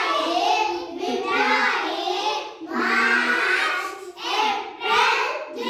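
A group of young children chanting the names of the months together in a sing-song, phrase after phrase with short breaks between.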